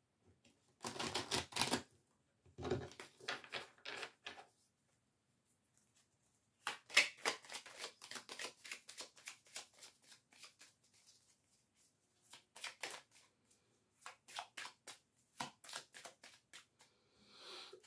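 A deck of Oracle Belline cards being shuffled by hand: quick flicking and riffling in several bouts, the longest and densest run in the middle, with short pauses between.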